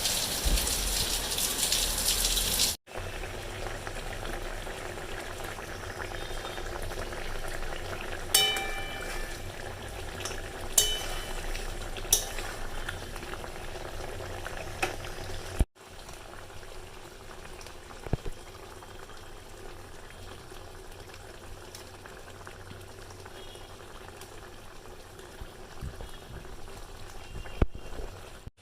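Heavy rain pouring down, a loud steady hiss that cuts off abruptly after about three seconds. It gives way to a quieter steady hiss with a few sharp clicks and clinks scattered through it.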